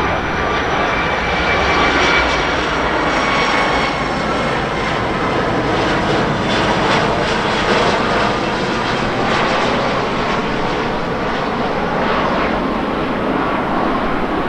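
A landing airliner's jet engines: a loud, steady rush of engine noise with a faint high whine.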